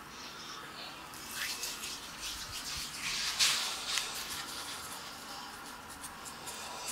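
Fingertips rubbing and pressing on a man's face and short beard stubble during a face massage, a few scratchy rubbing sounds with the loudest about three and a half seconds in.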